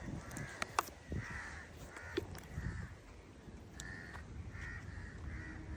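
A crow cawing repeatedly. A few sharp clicks sound in the first couple of seconds.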